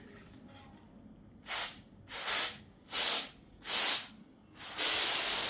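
Aerosol carb cleaner sprayed through a straw nozzle in short hissing bursts. Five bursts begin about a second and a half in, the last one longer than the others.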